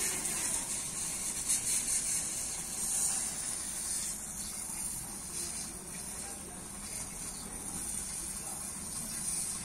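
Steady high hiss of a water jet spraying onto a pickup truck as it is washed.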